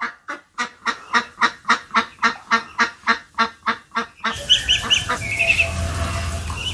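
White domestic duck quacking in a fast, even run of about three and a half calls a second. After about four seconds the calling stops and gives way to a low rustle with a few short high chirps.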